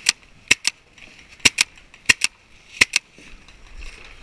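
Paintball markers firing: ten sharp pops in quick pairs, about one pair every two-thirds of a second. The shooting stops about three seconds in.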